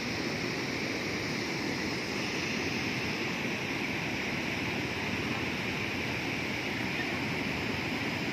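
Brown floodwater pouring over a long low weir and churning through the rocks below it: steady rushing water with no breaks.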